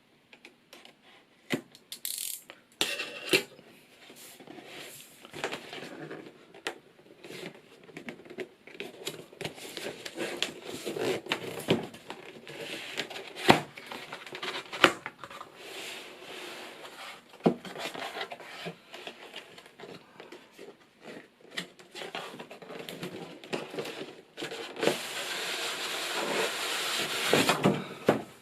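Cardboard keyboard box being opened and handled: scattered taps, knocks and rustling, with a few seconds of steady rustling or scraping near the end.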